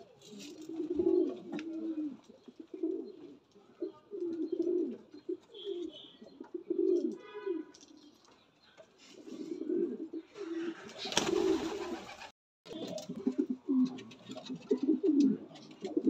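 Domestic racing pigeons cooing over and over, low calls that rise and fall in pitch. About eleven seconds in, a loud rush of noise lasts about a second.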